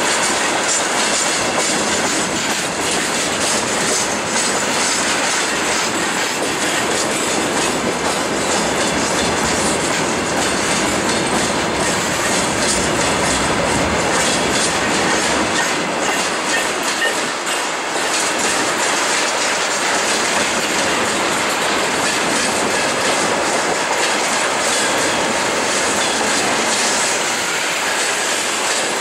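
Freight train of railway tank cars rolling past close by, wheels clattering steadily over the rail joints.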